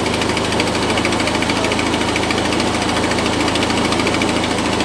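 John Deere 400 garden tractor's engine running steadily.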